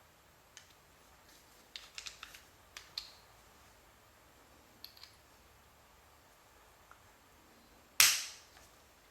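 Small metal clicks and clacks of a Ruger LCP pocket pistol being taken apart by hand. About eight seconds in comes one loud, sharp metallic clack with a brief ring.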